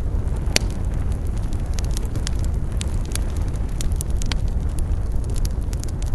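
Campfire crackling: frequent sharp pops and snaps of burning wood over a steady low rumble, with one louder pop about half a second in.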